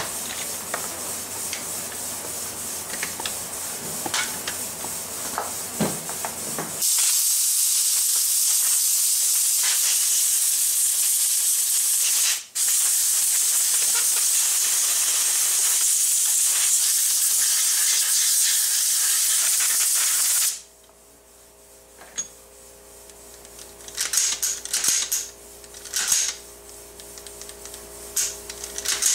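A rag wiping over an AR-15 rifle, a scratchy rubbing, then about seven seconds in a loud steady hiss that lasts about fourteen seconds, broken once briefly. Near the end the rifle is handled, giving several sharp metallic clicks and knocks.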